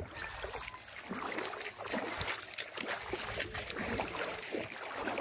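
Shallow seawater sloshing and splashing as someone wades through it, an irregular run of splashes throughout.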